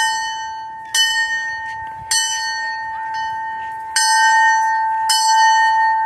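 Old locomotive bell on a post, rung by pulling its rope: five clanging strokes, each ringing on into the next, with a longer gap near the middle.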